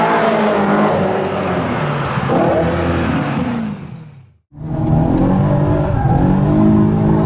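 BMW M3 E92's 4.0-litre V8 through a Fabspeed exhaust with X-pipe and sport cats, running at shifting revs. The sound fades away about four seconds in, then comes back abruptly with the engine climbing in revs.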